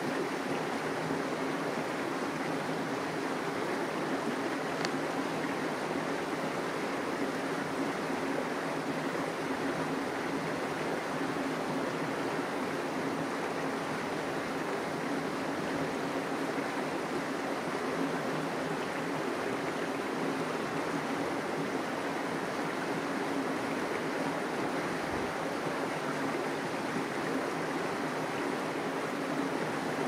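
Steady, even rushing noise with a faint low hum beneath it, unchanging throughout; no bird calls are heard.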